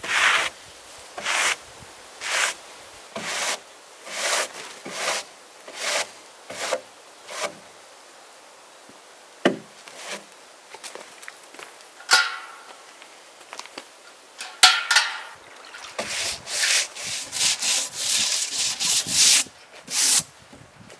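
A brush scrubbing along the charred surface of a fire-burnt plank, rough strokes about once a second, knocking off the loose char. After a quieter spell with a couple of sharp knocks, quicker scrubbing strokes come near the end as the board is washed down with water.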